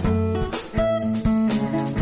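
Background music with a steady beat, plucked notes struck about three times a second.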